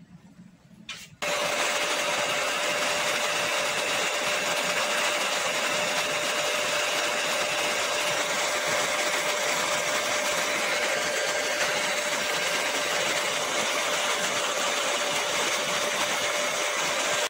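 Handheld hair dryer switched on about a second in, then running steadily: an even rush of blown air over a steady motor hum.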